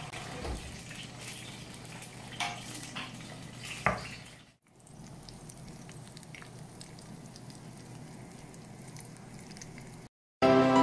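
Hot glass baking dish knocking a few times on a wooden cutting board, the loudest knock about four seconds in, then freshly roasted bone marrow halves sizzling faintly and steadily in the dish.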